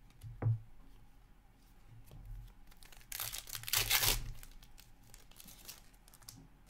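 Foil wrapper of a hockey card pack torn open and crinkled for about a second, around three seconds in. A soft thump comes shortly before, about half a second in.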